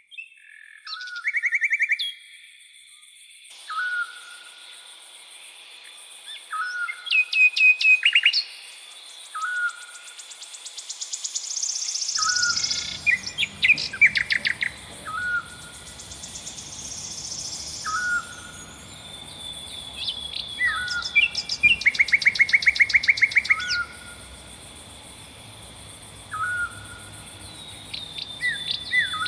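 Several songbirds singing: one short hooked call repeats about every two seconds, between fast trills and quick series of chirps, over a thin steady high tone.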